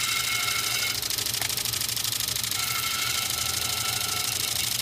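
Electric sanding disc running steadily with a low hum, grinding a hippo-ivory saddle blank. A higher whine comes and goes twice as the ivory is pressed to the disc.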